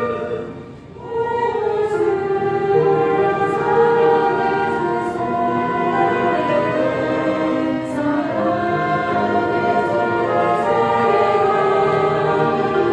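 A choir singing a hymn with instrumental accompaniment, held notes moving from phrase to phrase. The music dips briefly just under a second in, between phrases.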